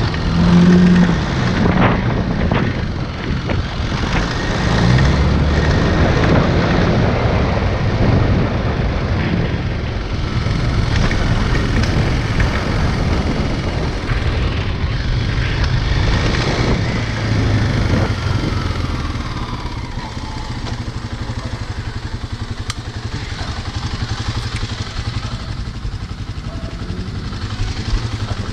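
Motorcycle engine running while riding, its pitch rising and falling as it speeds up and slows. It grows quieter over the last several seconds as the bike pulls up at the curb.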